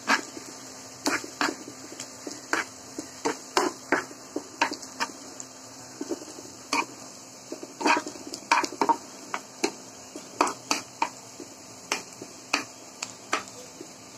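A spatula knocking and scraping against a pan as chopped onions are stirred in hot oil. Irregular sharp knocks, roughly two a second, sound over a steady frying sizzle.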